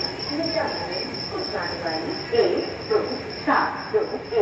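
Crickets trilling in one steady high-pitched tone, with people's voices talking over it, the voices louder in bursts.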